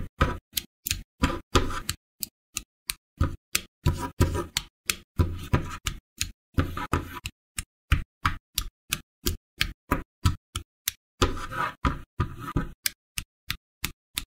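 A rapid run of short plastic clicks and clacks, about three a second with silence between them, from action-figure kit parts being picked up and snapped together.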